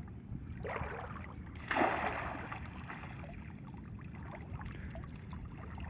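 Shallow river water sloshing and splashing as a hand scoop net is swept through it and lifted out, with one louder splash about one and a half seconds in.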